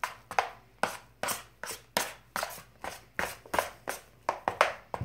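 A utensil stirring thick, foamy slime mixture in a plastic bowl: quick repeated strokes, about three a second, each with a short scrape or knock against the bowl.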